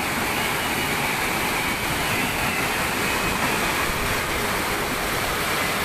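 Swollen, muddy floodwater of a river rushing past in a steady, loud torrent.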